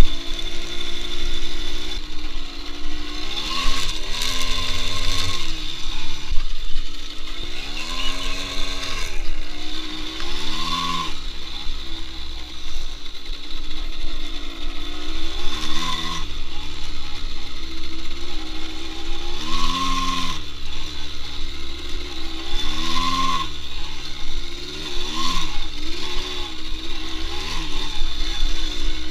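Small engine of a Delta RMR 24 moped revving up and falling back again and again while riding, a rise in pitch every few seconds, over a steady low rumble.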